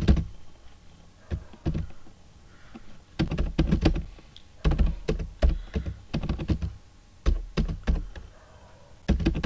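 Computer keyboard keys clicking in irregular bursts of typing, with short pauses between the bursts.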